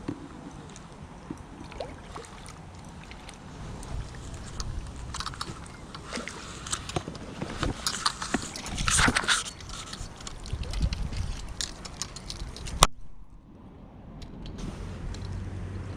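A small mirror carp being landed: irregular water sloshing and splashing around the landing net, with rustling and knocking as the net and tackle are handled, and one sharp click about thirteen seconds in.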